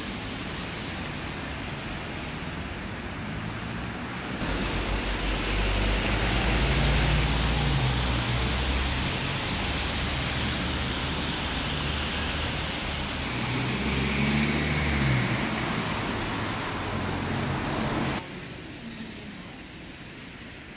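Road traffic on a rain-wet street: cars passing with engines running and tyres hissing on the wet road, over a steady hiss of rain. The sound grows louder about four and a half seconds in as vehicles come close, and drops away suddenly near the end.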